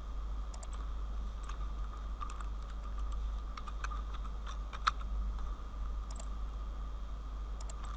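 Irregular, scattered clicks of a computer keyboard and mouse, with one sharper click about five seconds in, over a steady low hum.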